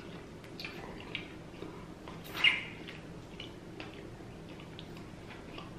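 Mouth sounds of someone eating rotisserie chicken: small wet clicks and lip smacks, with one louder wet mouth noise about two and a half seconds in, over a faint low hum.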